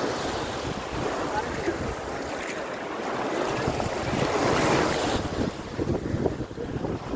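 Sea surf washing in and out around the legs in shallow water, with wind buffeting the phone's microphone. The wash swells louder about halfway through, as a wave comes in, then eases.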